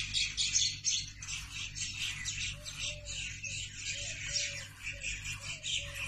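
Many small birds chirping and singing at once, a dense unbroken stream of short high chirps, with a few fainter lower calls joining from about two and a half seconds in, over a faint steady low hum.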